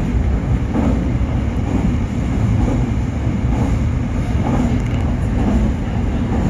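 Running noise of a Nankai 8300 series electric train heard from inside the leading car: a steady, low rumble of wheels on rail and running gear at speed.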